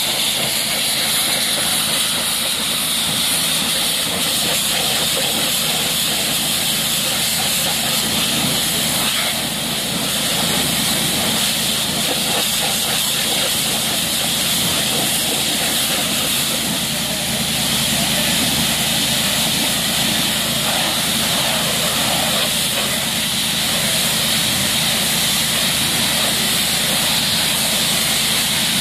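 High-pressure water jet from a pressure-washer wand hissing steadily as it rinses foam off a car, with the washer's engine running underneath.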